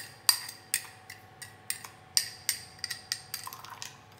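A metal spoon clinking against a glass jar as salad dressing is stirred: a run of sharp, ringing clinks at about three a second.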